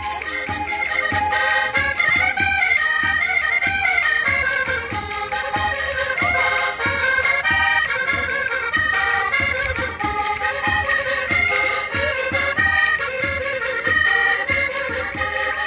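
Live instrumental Portuguese Minho folk music for a rancho dance: a squeezebox melody over a steady drum beat of about three beats a second.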